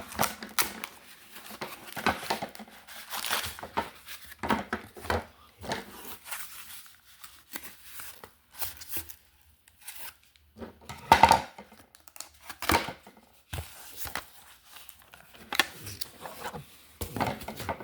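Packaging being torn open and crinkled by hand, in irregular rustling bursts, the loudest a little after halfway.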